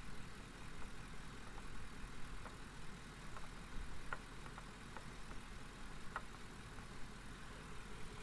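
Pickup truck engine idling steadily, with a few faint, scattered clicks over it.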